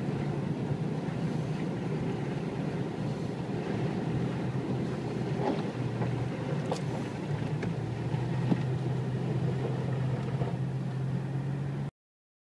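A car driving through a flooded street, heard from inside the cabin: a steady low engine hum with the rush and splash of floodwater against the car, and a few sharp ticks in the middle. It cuts off suddenly near the end.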